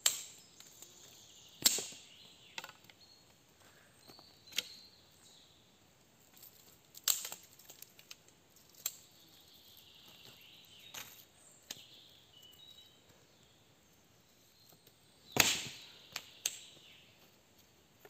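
Firewood being prepared by hand: a series of sharp wooden cracks and knocks at irregular intervals, about a dozen in all, the loudest about fifteen seconds in.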